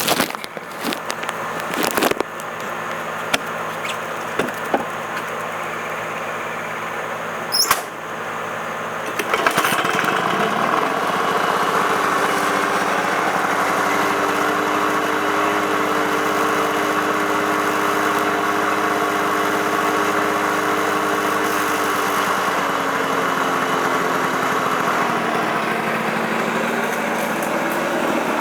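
Two-stroke 5 horsepower Lawn-Boy Gold Series mower engine catching on the first pull and running at a lower speed with a few sharp clicks, then speeding up about ten seconds in and holding a steady, higher speed, easing down slightly near the end.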